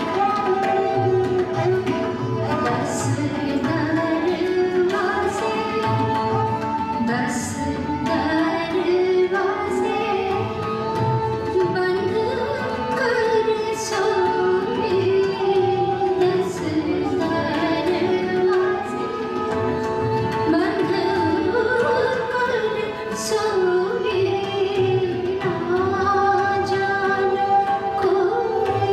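Live Indian vocal music: a woman sings a slow, gliding melody over a sustained harmonium drone, accompanied by an upright bowed string instrument, acoustic guitar and tabla keeping time.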